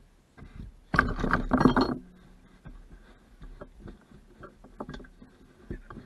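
About a second of loud rustling and scraping as hands work the seatbelt strap and floor carpet, followed by scattered light clicks and taps.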